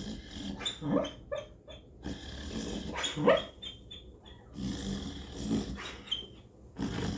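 Snoring in slow rasping breaths, about three in a row a couple of seconds apart, with short high whistling squeaks between them.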